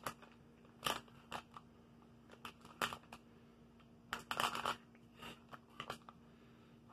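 Plastic candy bag crinkling in the hands, in short scattered rustles with a brief cluster about four seconds in, over a faint steady hum.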